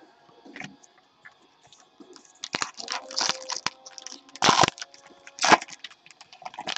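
Wrapper of a 2015 Gypsy Queen baseball card pack being torn open and crinkled by hand. It makes a run of sharp crackles starting about two seconds in, loudest twice in the second half.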